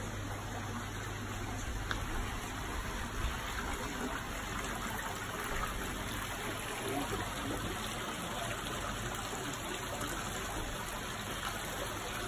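Water running steadily over rocks in a small stone-lined stream channel, a constant rushing.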